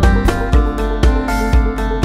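Background music: the instrumental opening of a song, pitched instruments over a steady beat of about two strong thumps a second.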